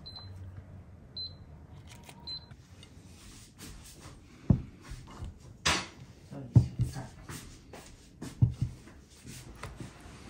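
Three short high beeps about a second apart, then scattered knocks and clinks of cutlery and dishes on a table, a few of them sharp.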